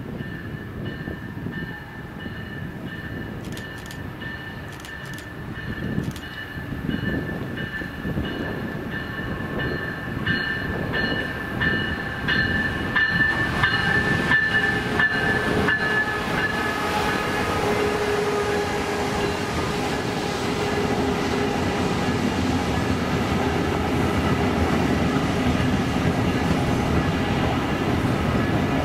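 Brightline passenger train, Siemens Charger diesel-electric locomotives at either end with coaches between, approaching and passing close by, its wheels rolling on the rails and growing louder over the first half. A steady high whine sounds as it nears, and a lower engine drone comes in during the second half as the rear locomotive passes.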